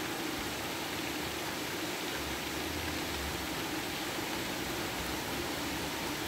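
Steady, even outdoor hiss under a stormy sky, with a faint low rumble about two seconds in.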